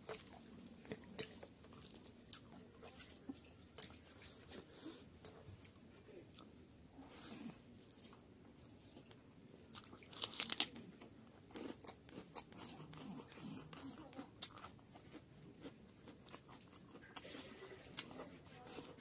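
Close-up eating sounds of a man chewing chicken curry and rice: wet chewing and small crunches throughout, with one louder crunchy bite about ten seconds in.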